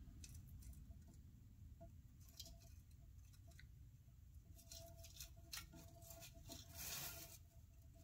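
Near silence with faint light clicks and a brief rustle near the end: hands handling insulated hookup wires and heat-shrink tubing.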